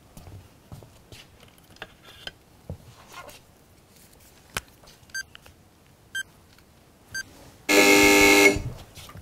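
Game-show countdown: three short beeps a second apart, then a loud horn-like buzzer about a second long, signalling the start of the timed drawing round. Before it, soft clicks and shuffling as the contestant handles a marker.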